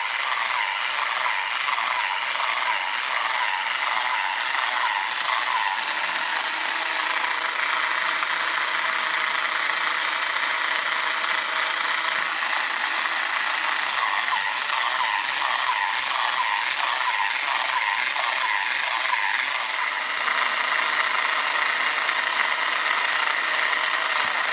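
A 1960s T-N (Nomura) battery-operated Pee Pee Puppy toy running: its small electric motor and gear train whirr steadily with a rhythmic ratcheting clatter as the toy walks. The running sound dips briefly and comes back a little louder about twenty seconds in.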